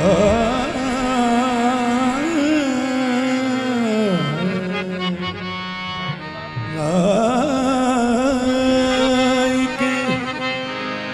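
Qawwali singing: a voice holding long wordless melismatic vowels that waver and glide up and down, dipping about four seconds in and picking up again near seven seconds, over a steady harmonium drone.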